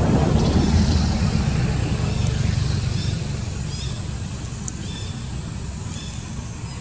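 Low rumble of a motor vehicle passing, swelling near the start and slowly fading away, with a few faint short high chirps over it.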